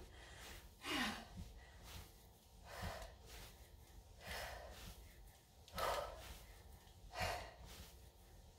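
A woman breathing hard during bodyweight squats: faint, short breathy exhales about every one and a half seconds.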